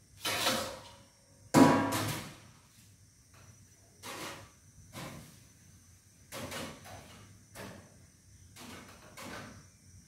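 Kitchen handling sounds: a string of knocks and clatters of things being picked up and set down, the loudest about a second and a half in, then lighter ones every half second or so.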